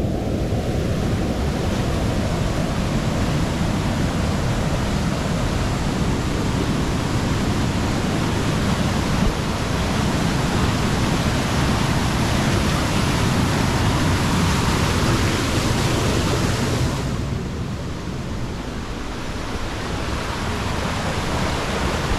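Creek water rushing down narrow cascades and small waterfalls in a rock gorge: a steady, loud rush of white water. About three-quarters of the way through it turns briefly duller and a little quieter, then comes back full.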